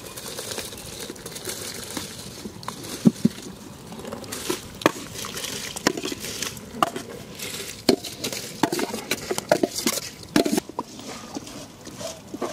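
Seeraga samba rice going into a large pot of boiling biryani masala water and being stirred in with a metal ladle, with irregular clinks and scrapes against the pot over a steady hiss.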